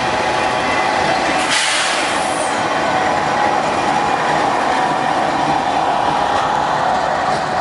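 Freight train of covered hopper cars rolling past close by, a steady rumble of wheels on rail with a steady ringing tone and a brief, sharper high-pitched rush about one and a half seconds in. A Union Pacific diesel locomotive passes in the second half.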